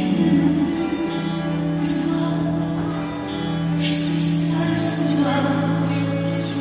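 Slow music with long held notes.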